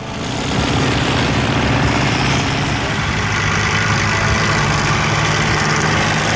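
Several vintage farm tractors' engines running hard as the racing tractors pass, a loud, steady, rattling run that fades near the end.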